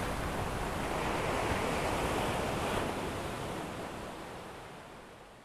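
Sea surf washing onto a beach, a steady rush that fades away over the last two seconds.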